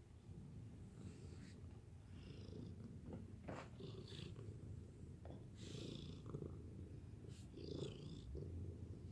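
Domestic cat purring steadily, a low continuous rumble, with a few brief soft rustling or scratching noises over it.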